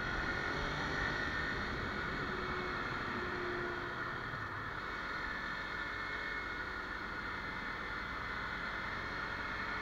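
Steady wind rush over the microphone of a Kawasaki Ninja 300 riding at around 50–60 km/h, with the bike's parallel-twin engine running underneath.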